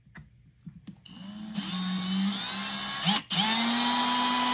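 Power drill with a 1/4 inch bit starting up about a second in and running steadily. It is briefly released a little after three seconds, then restarted and held on.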